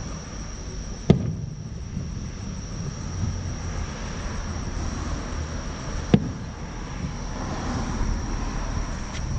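Two booms of fireworks bursting in the distance, about five seconds apart, over a steady low rumble.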